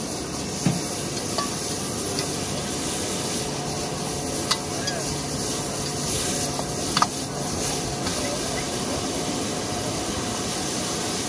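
Food sizzling steadily in a wok as it is stir-fried with a metal spatula, with a couple of sharp clinks of metal on the wok partway through.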